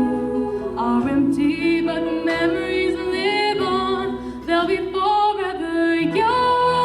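Singing, a slow song of long held notes with glides between them, with a steady lower part held underneath.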